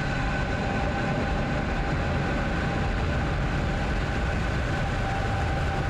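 Falcon 9's nine Merlin engines at liftoff, a steady deep rumble as the rocket climbs off the pad.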